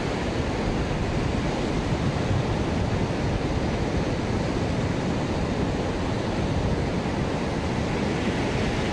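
Steady rush of surf breaking on a beach, with wind rumbling on the microphone.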